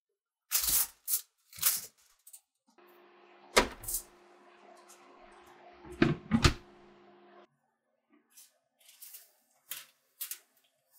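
Cookware being handled: sharp clicks and knocks from the glass dish and the lid of an electric steamer being set down and lifted. A steady low hum from the running steamer lies under the knocks from about three to seven seconds in.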